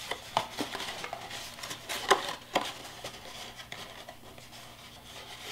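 Cardstock being folded and its side flaps tucked in by hand: soft paper rustling with scattered sharp clicks, the loudest a little after two seconds in.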